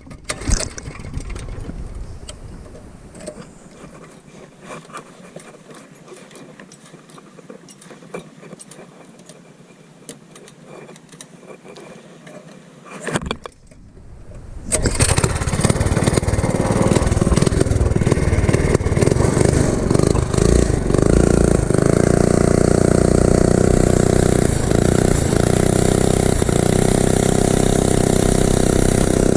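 Faint clicks and knocks for the first half, then a mini bike's governor-deleted 212 cc single-cylinder four-stroke engine with a straight-pipe open header comes in suddenly about halfway through and runs loudly at a steady speed.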